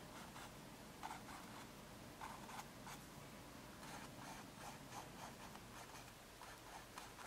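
Faint, scratchy strokes of a paintbrush on a canvas, irregular at roughly two a second, as paint is brushed in, over a low room hum.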